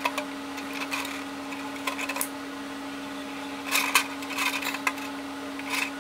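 Clear plastic RC car body shell rustling and crackling in short, irregular bursts as it is handled and turned while being marked, over a steady low hum.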